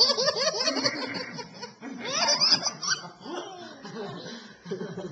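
A young child laughing in two bouts, at the start and again about two seconds in.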